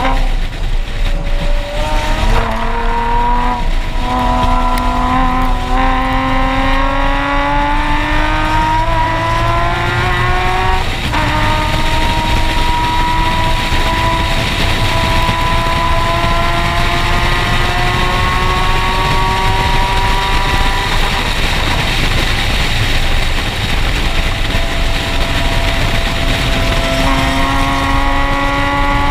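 Nissan 370Z's 3.7-litre V6 on track, heard through a Tomei aftermarket exhaust close to the tailpipes, pulling hard. The engine climbs in pitch and drops back at each gear change, several times early on. It then makes a long climb, holds steadier for a while, and climbs again near the end.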